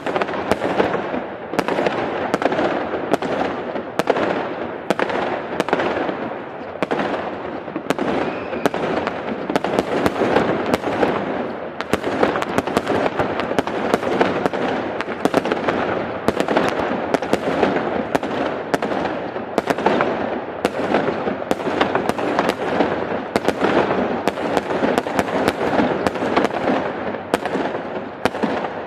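Large aerial fireworks display going off continuously: a rapid, unbroken run of bangs and crackles, several a second, blurring into a steady rumbling wash.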